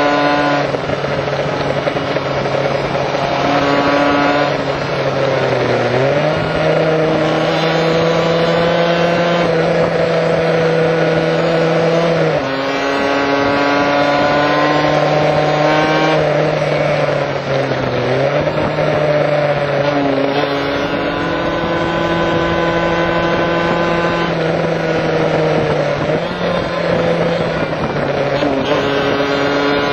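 Kawasaki KH500's two-stroke three-cylinder engine running hard under way, its note stepping up and down in pitch several times as the revs change through the curves.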